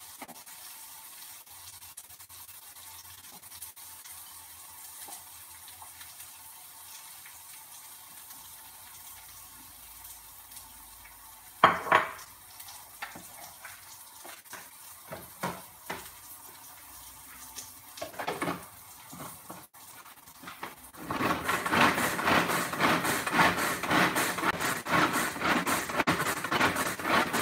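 Onions frying faintly in a pan, with a sharp clatter about twelve seconds in and a few lighter knocks after it. Near the end a hand-pulled plastic food chopper starts up, a loud, fast, dense rattle as its blades chop raw cauliflower and carrot.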